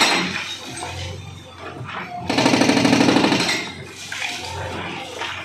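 Hydraulic breaker on a JCB backhoe loader hammering a brick house wall in rapid blows, loudest in a burst from about two to three and a half seconds in.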